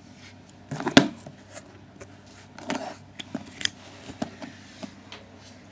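Cardboard box being handled and opened: one sharp knock about a second in, then scattered taps, scrapes and rustles.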